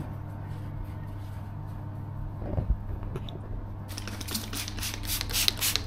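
Hand trigger spray bottle spritzing the face, a quick run of short hissing sprays in the last two seconds. Before that, only soft wiping of tissue on skin over a low steady hum.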